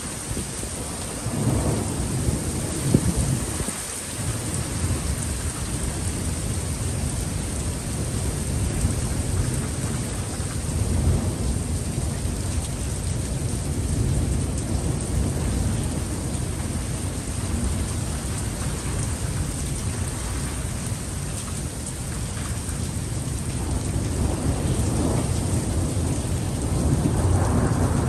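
Steady heavy rain falling, with thunder rumbling low and on and off beneath it, swelling again near the end.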